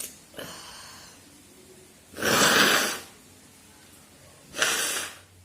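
A woman sneezing twice, about two seconds and four and a half seconds in. The first sneeze is the louder and longer.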